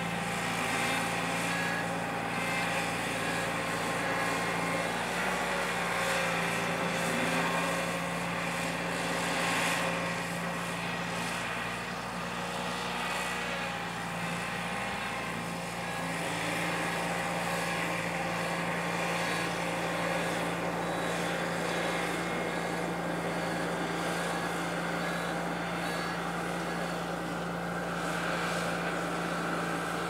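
Engine of a small ride-on road roller running steadily as it rolls across a grass field, its note wavering briefly about halfway through.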